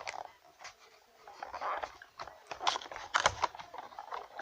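Irregular crackling and crunching as a chocolate Easter egg is opened: its wrapping and shell being worked apart by hand.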